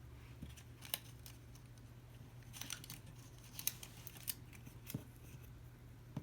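Faint paper handling: a patterned-paper envelope being folded and pressed shut with glue dots, a handful of short crisp paper snaps and rustles spread through.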